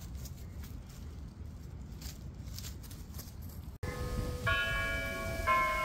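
Low outdoor rumble with faint clicks, then from about four seconds in, bells ring a series of notes, a new note about every second.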